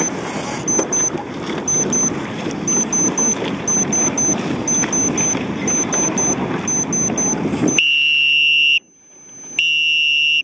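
Wind and water noise with short high beeps in quick groups from a race countdown timer, then a loud steady horn blast about eight seconds in as the dinghy race start signal, and a second blast near the end.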